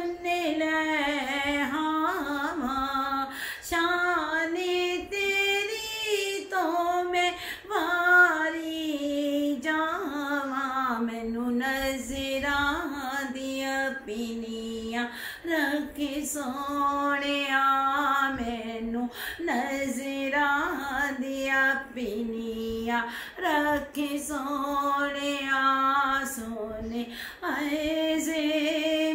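A woman singing a Punjabi naat unaccompanied, in long held notes that waver and glide in pitch, with brief breaths between phrases.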